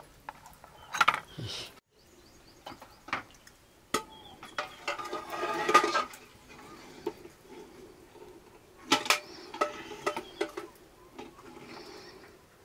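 Steel spoon clinking and scraping against a plastic bowl and a metal cooking pot as eggs are scooped up and lowered into the pot: a series of sharp clinks and knocks, with a denser run of scraping about halfway through.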